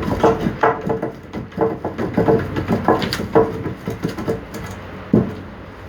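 Hands striking a hardwood makiwara post wrapped in rope: a fast, uneven run of wooden knocks, about three a second, easing off near the end.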